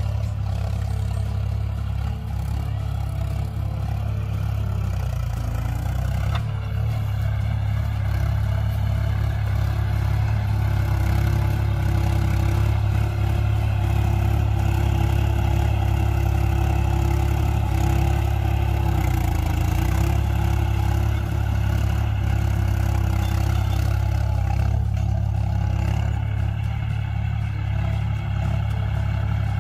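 John Deere 5045D tractor's three-cylinder diesel engine running steadily under load while pulling a rigid cultivator through stubble. It grows louder as the tractor passes close by in the middle, then eases off a little near the end.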